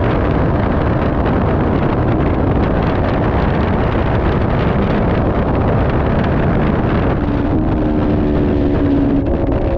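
Onboard sound of a racing motorcycle at around 100 mph: a loud, steady rush of wind noise over the microphone, with the engine running underneath it. Near the end a faint engine note comes through and drops a little as the bike slows.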